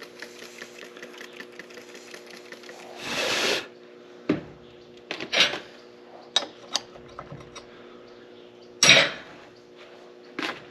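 Metalwork on a steel cutter bar section: a steady hum with fast light ticking, a short loud rasping burst about three seconds in, then several sharp metal clanks and knocks, the loudest near the end.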